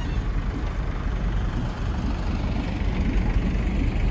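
Towed heavy lorries of a road train rolling slowly past, a steady low rumble.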